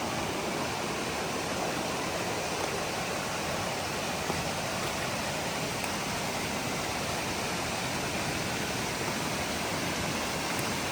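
A swollen spring-fed creek rushing in flood after heavy tropical-storm rain, a steady loud roar of fast water.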